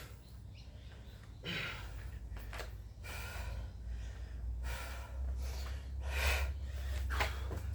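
A person breathing hard from exertion, with sharp gasping breaths about every second and a half.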